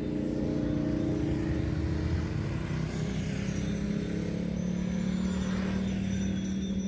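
Road traffic with motorbikes and cars passing, under a steady engine hum whose pitch shifts about three seconds in.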